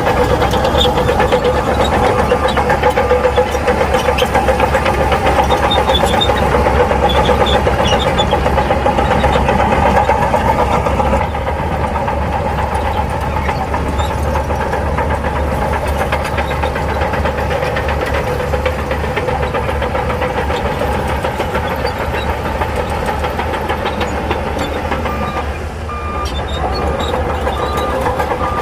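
Heavy earthmoving machine's diesel engine running steadily under load, a little quieter from about eleven seconds in, with a brief dip near the end.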